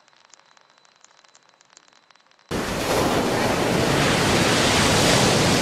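Faint crackle, close to silence, that cuts off suddenly about two and a half seconds in to loud ocean surf, with wind on the microphone.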